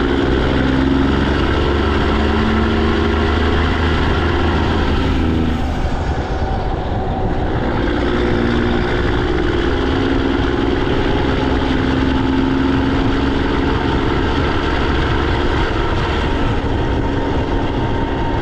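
PACCAR MX-13 diesel semi-truck engine, fully emissions-deleted and running on straight pipes, pulling under load. The engine note dips briefly about six seconds in, then pulls steadily again.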